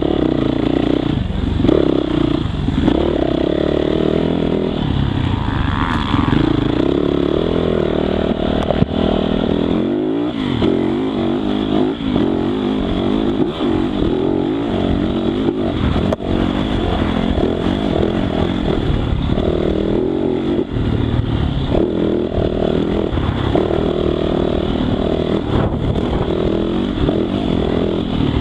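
2018 Yamaha YZ450F's single-cylinder four-stroke engine running hard, its pitch rising and falling repeatedly as the throttle is opened and backed off, with brief lifts of the throttle along the way.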